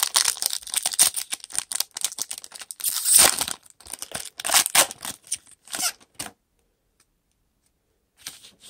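Foil wrapper of a football trading card pack being torn open and crinkled by hand: dense crackling for about three seconds, with the loudest rip a little after three seconds in. A few shorter crinkles follow, then about two seconds of quiet before a brief rustle near the end.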